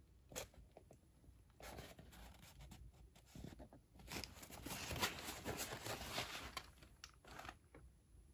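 Cardboard ration box being handled and turned in gloved hands: faint scraping and rustling of hand and glove on cardboard, busiest in the middle, with a few small knocks.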